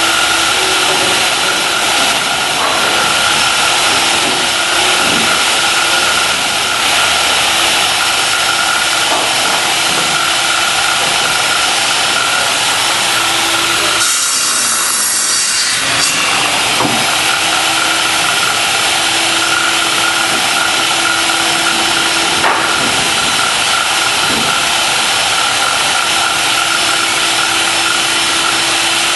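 Power saw cutting 12-foot 2x4 boards into 6-foot lengths, running steadily with a held hum. About halfway through the low part of the sound drops out briefly.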